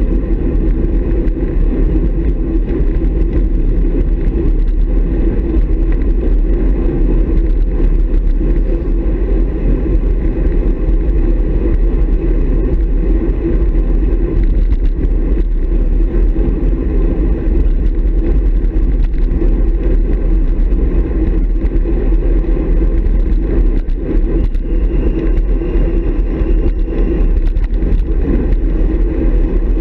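Steady, loud wind noise on the microphone of an action camera mounted on a road bike's handlebars, mixed with the rumble of tyres on tarmac as the bike rides in a racing bunch.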